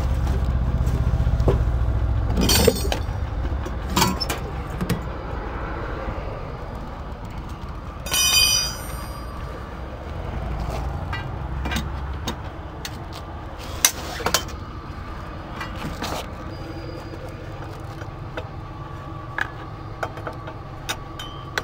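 Metal clanks and clicks of hand tools and tow-dolly hardware as a blown tow-dolly tire is being removed with a four-way lug wrench, with a short squeal about eight seconds in. A low rumble runs underneath, heaviest in the first half.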